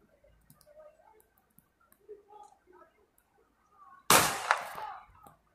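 Faint distant voices, then about four seconds in a sudden loud sharp bang, followed by a second crack about half a second later, both ringing out for about a second.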